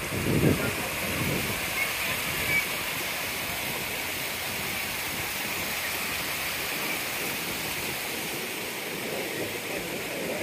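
Waterfall: water falling steadily, a continuous even hiss.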